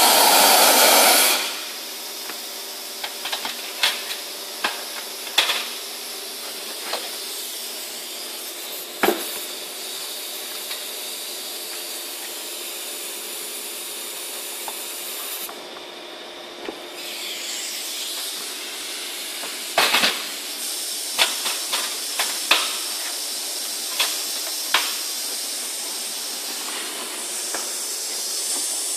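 Compressed-air-driven wet and dry vacuum cleaner running loudly, then cut off about a second in. A steady hiss of air continues, with scattered knocks and clicks of the stainless drum, lid and hose being handled. The hiss drops out briefly about halfway and comes back stronger near the end.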